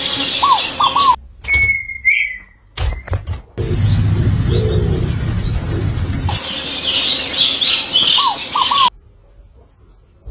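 Birds chirping in short repeated calls, with a brief whistled note; the background changes abruptly several times.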